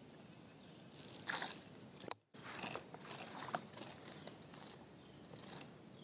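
Faint rustling, scraping and clicking handling noise as a small smallmouth bass is brought into a rubber-mesh landing net, louder for a moment about a second in. The sound cuts out completely for an instant about two seconds in.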